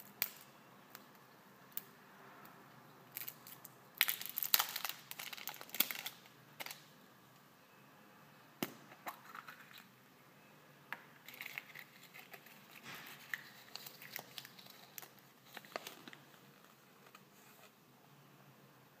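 Plastic wrapper of a surprise egg crinkling and tearing in bursts as it is peeled off, with sharp clicks from the plastic capsule and rustling of the paper leaflet inside.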